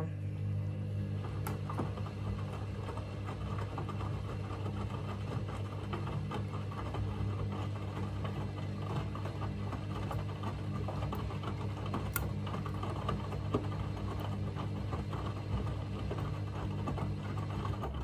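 Candy Smart front-loading washing machine turning its drum in the wash cycle: a steady motor hum with laundry tumbling and sloshing in sudsy water, stopping right at the end as the drum pauses.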